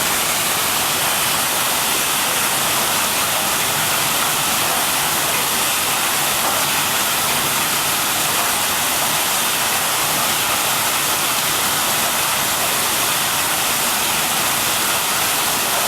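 Drum brush root-vegetable washing machine running: a steady, rushing, water-like hiss.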